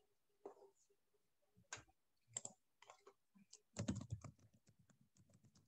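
Faint computer keyboard typing: scattered keystrokes at first, then a quicker run of keys over the last couple of seconds.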